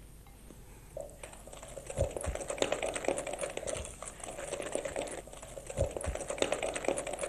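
Wooden spoon beating softened chocolate into creamed butter in a glass bowl: fast, dense clicking and tapping of the spoon against the glass. It starts about a second in, with a few dull knocks.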